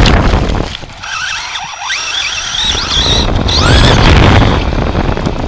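Onboard sound of an SC10 radio-controlled short course truck driving: heavy wind and ground rumble on the microphone, with the whine of its electric motor and gears rising and falling in pitch as the throttle changes.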